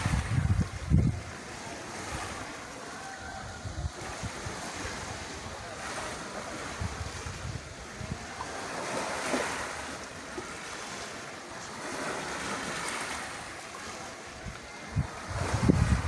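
Sea waves washing onto the shore, rising and falling in slow swells, with wind buffeting the microphone near the start and again near the end.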